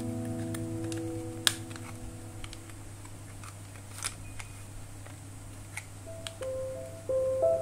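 Background music fading out, then a few sharp clicks of a thin metal pin prying at the seam of a plastic power-bank case, over a low steady hum. New music notes start near the end.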